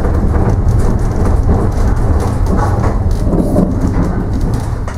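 Heritage electric tram running, a loud steady rumble of its wheels on the rails and its running gear heard from inside the wooden car.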